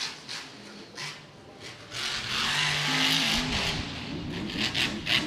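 Grave Digger monster truck's supercharged engine running hard as the truck drives and jumps, growing louder about two seconds in, with its pitch dipping and rising as the throttle changes.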